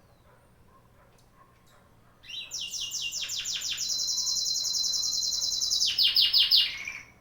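A small songbird sings one long, loud, high-pitched song starting about two seconds in: a run of quick notes, a long even trill, then more quick notes before it stops just before the end.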